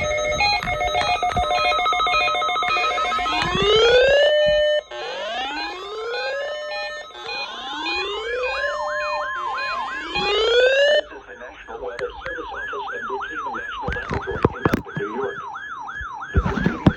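Electronic siren. It opens with a few seconds of pulsing multi-tone beeping, then rises in repeated wail sweeps about every second and a half, each cutting off at the top, and changes to a fast yelp about eleven seconds in.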